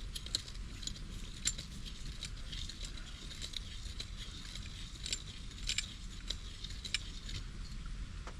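Irregular light metallic clicks and scrapes of hand tools being handled and worked around copper pipe, over a steady low hum.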